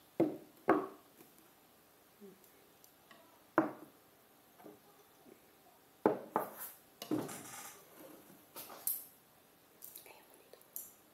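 Ceramic bowls and plates knocking on a wooden table and chopsticks clinking against them. There are two sharp knocks right at the start as a rice bowl is set down, another about three and a half seconds in, and a cluster of clinks and taps a little past the middle.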